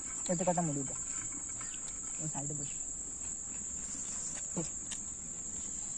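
Insects chirring: a steady, high-pitched, unbroken chorus. Short snatches of voices come in over it about half a second in and again near two and a half seconds.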